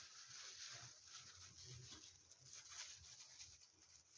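Faint, irregular rustling and soft rubbing of a disposable plastic glove as marinade is spread over raw fish pieces.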